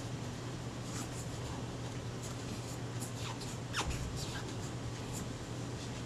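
Cotton-tipped stick rubbing and scratching inside a metal camera shutter case as its water stains are cleaned off. It gives faint scratchy strokes, with a couple of short squeaks in the middle, over a steady low hum.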